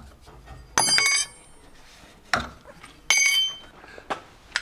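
Aluminium side-bar mounting clamps clinking onto other metal parts as they are dropped, twice, about one and three seconds in, each strike ringing briefly, with a shorter knock between them.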